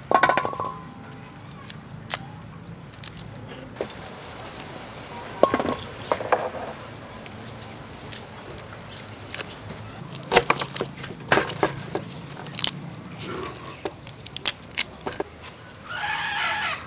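Garlic cloves being peeled with small knives: the papery skins crackle and tear, with scattered sharp clicks and scrapes of the blades. A short pitched call is heard at the very start and again near the end.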